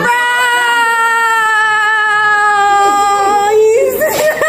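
A woman's singing voice holds one long note that sinks slightly in pitch for about three and a half seconds, then breaks into quick, wavering runs of notes near the end.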